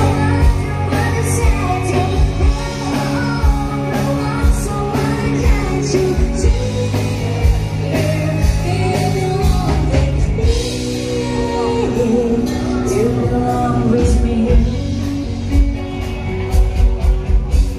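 Loud music with a singer over a steady beat, a rock-style song that runs on without a break.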